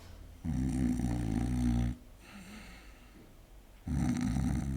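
A man snoring, two long low buzzing snores, the second starting about four seconds in and still going at the end. The snoring comes from his tongue falling back and blocking the airway between throat and nose as his head tips forward.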